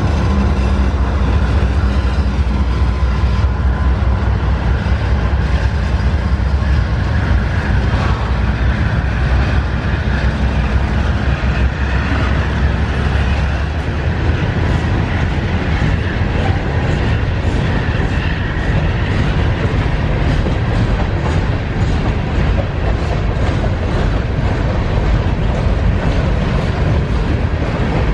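Union Pacific empty coal train passing close by: the mid-train diesel-electric locomotives rumble past with a heavy low engine hum for about the first half. The hum then eases and empty coal hopper cars roll by, their wheels clicking rhythmically over the rail joints.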